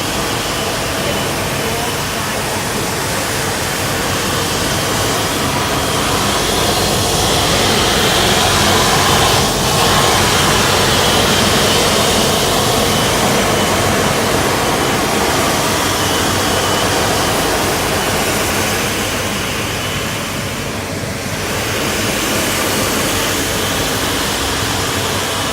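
Ravo 5i vacuum street sweeper running, a steady loud rushing noise from its suction fan and engine as it vacuums mud off the road.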